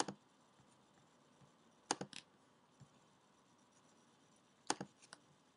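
Computer mouse clicks: a couple about two seconds in and a quick cluster of three or four near the end, over faint steady hiss.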